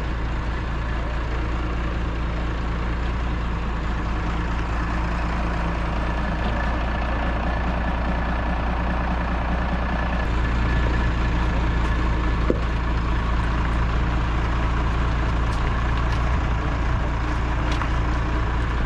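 Massey Ferguson 2640 tractor's diesel engine running steadily at low revs, growing louder about ten seconds in, with a single sharp knock a couple of seconds later.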